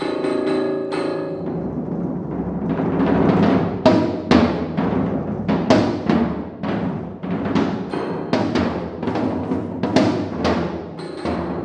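Live contemporary music for piano and percussion: a chord rings in the first second, then the drums take over with fast, irregular strokes, several a second, for the rest of the passage.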